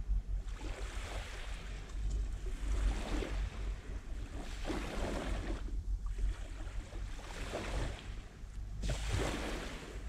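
Small Black Sea waves lapping and washing up a shallow sandy shore: a hiss that swells and fades several times, a few seconds apart. Underneath runs a steady low rumble of wind on the microphone.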